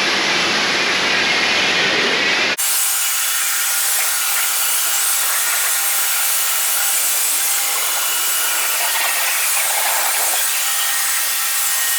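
Kärcher K2 electric pressure washer spraying a water jet onto a car during the rinse, a steady hiss. About two and a half seconds in, the sound changes abruptly and loses its low rumble, leaving a higher hiss.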